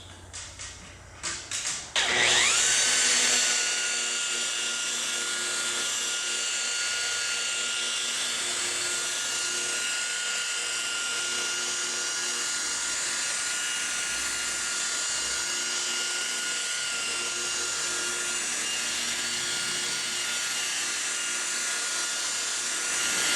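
Electric paint polisher starting up about two seconds in, its whine rising as it spins up, then running steadily at one pitch while buffing painted tractor sheet metal. A few light clicks come just before it starts.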